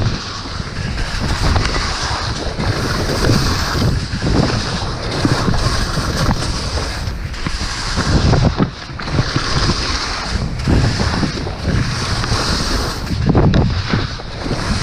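Wind buffeting a helmet- or body-mounted action camera's microphone during a fast ski descent, with the hiss of Black Crows touring skis' edges scraping across snow that swells and fades with each turn, about every two to three seconds.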